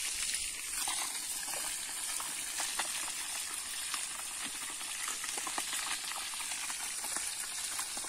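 Fish frying in a pan of hot oil over a wood fire: a steady sizzle with many small crackles and pops.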